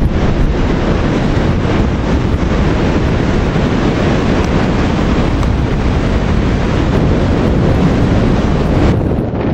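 Wind buffeting the microphone in a steady low rumble, mixed with the rush of Atlantic surf. The hiss in the upper part drops away abruptly near the end.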